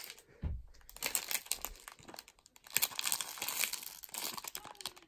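Crinkly packaging of a small silicone brush toy being handled, a dense run of crackling and rustling, with a soft low thump about half a second in.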